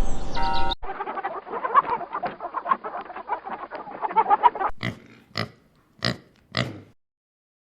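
Pigs grunting in a busy jumble, then four separate short grunts a little over half a second apart, before the sound cuts off.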